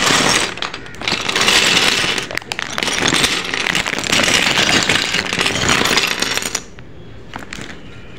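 Small plastic Lego pieces clattering and rattling as they are tipped out of a cut-open parts bag. The rattle is loud and continuous for about six and a half seconds, then stops, leaving a few light clicks.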